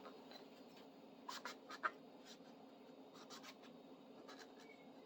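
Faint scratching and a few soft clicks of a steel wrench being handled and rubbed during cleaning, over a low steady room hum.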